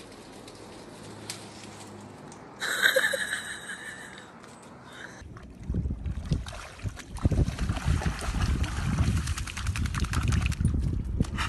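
A dog splashing and sloshing as it rolls and thrashes in a muddy puddle, in irregular wet bursts from about halfway through. A short pitched call sounds about three seconds in.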